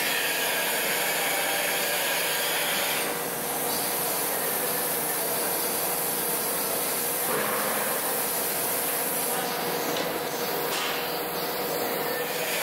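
Steady rushing machine noise with a faint steady hum, from a CNC bridge mill running; the noise shifts slightly about three and seven seconds in.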